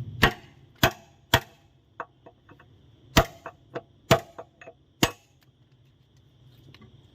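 Hammer blows on the steel of an excavator bucket tooth: six hard, sharp strikes at uneven spacing over the first five seconds, with lighter taps between them.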